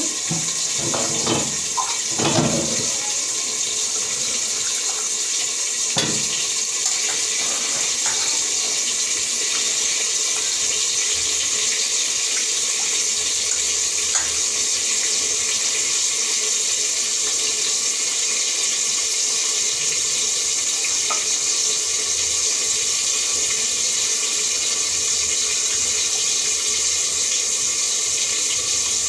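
Water running steadily into a steel bowl as raw chicken is washed by hand, with a few short knocks of the meat and bowl in the first seconds.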